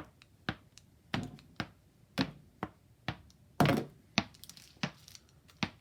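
An orange tennis ball bounced repeatedly on a SpecTennis paddle: sharp taps about two a second, a little uneven, some harder than others.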